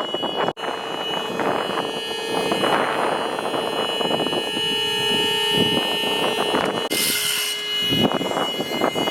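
A vehicle engine running with a steady hum over a continuous rushing noise, in keeping with a fire engine working at a car fire. The hum starts just after a brief cut-out about half a second in and stops near the end, and a short high hiss comes about seven seconds in.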